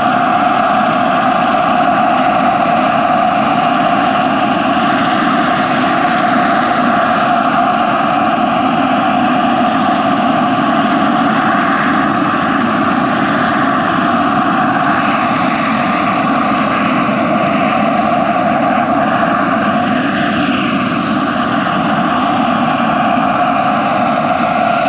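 Large-scale RC Bell 430 helicopter with a JetCat PHT3-XL model turbine engine, running steadily as it hovers and flies low. The turbine whine and the rotor noise carry on without a break, with a thin, high, steady whine on top.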